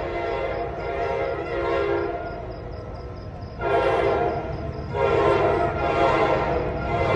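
Locomotive air horn sounding as the train approaches. A softer held note comes first, then louder blasts of several notes together start about three and a half seconds in: one of about a second and one of about two seconds.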